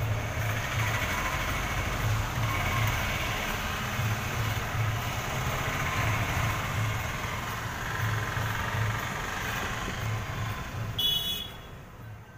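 Jangiri frying in hot oil in a wide kadai: a steady sizzle over a low hum that pulses a few times a second, like an idling engine. A brief sharp clink sounds near the end, then everything fades out.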